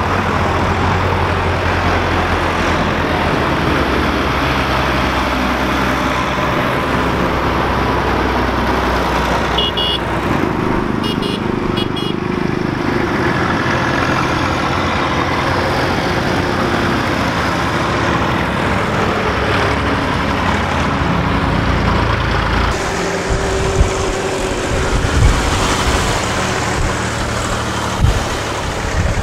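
Tractor engines running as a line of tractors drives past, with a moped passing in the middle and a few short horn toots about ten to twelve seconds in.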